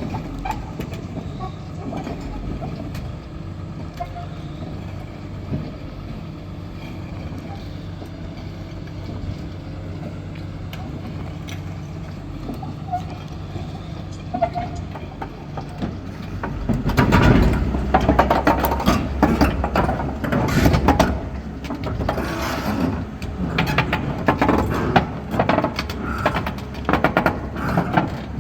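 Heavy diesel machinery engine running steadily, then about seventeen seconds in growing louder with metallic clanking and rattling.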